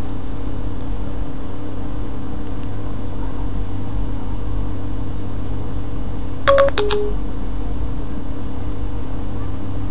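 A steady low electrical hum, with a short two-note electronic chime about six and a half seconds in: Siri's tone on an iPod touch 4th generation running a ported Siri.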